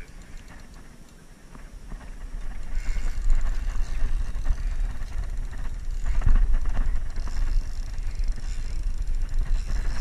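Fishing reel being cranked and the rod worked while fighting a hooked king salmon, a run of fine mechanical ticks that grows louder about three seconds in, with a knock about six seconds in. A low rumble lies under it.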